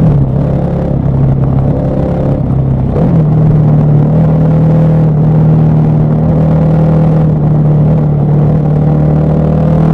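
KTM 1190 Adventure R's LC8 V-twin engine running under way, its pitch dropping at the start, rising again about three seconds in, then holding steady.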